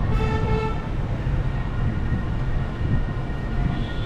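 Steady low rumble of a vehicle under way. A short, steady pitched tone with several overtones sounds over it in the first second.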